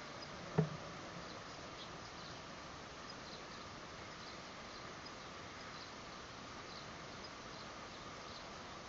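Steady low background hiss with faint, scattered high chirps, and one short knock about half a second in.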